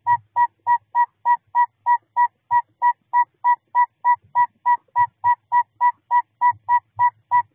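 Male northern saw-whet owl giving its advertising song: a long steady series of short, evenly spaced whistled toots on one pitch, about three and a half a second.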